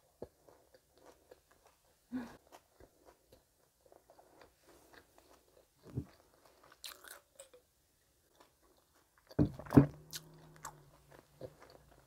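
Close-miked chewing of a deep-fried twisted donut with a crumble topping: soft mouth sounds and small clicks, with a few louder smacks about two, six and ten seconds in.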